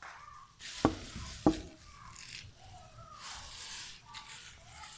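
Two sharp clicks about half a second apart, near the start, amid soft rustling from handling the small wooden toy billiard table.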